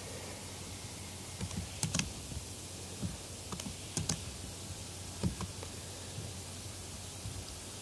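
A few scattered clicks and keystrokes on a computer keyboard and mouse, spread out rather than steady typing, over a low steady hum.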